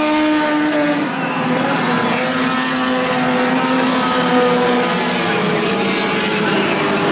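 Four-cylinder dirt-track race cars running laps at speed, their engines holding a steady pitch. One engine's note drops a little about a second in.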